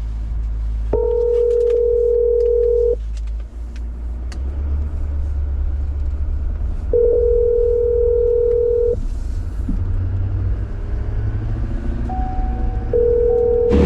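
Telephone ringback tone heard through a phone's speaker, ringing three times, each ring about two seconds long with about four seconds between, while the call to a co-worker goes unanswered. A steady low rumble runs underneath.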